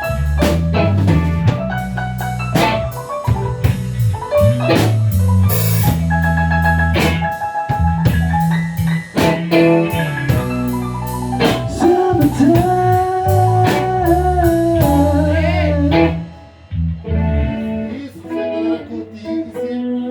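A live band playing a song in rehearsal, with a steady beat of sharp hits over a strong low bass. The full band stops about sixteen seconds in, leaving a few quieter notes.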